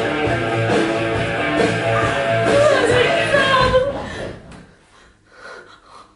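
Rock music with guitar, its melody line gliding up and down, fading out about four seconds in; only faint scattered sounds follow.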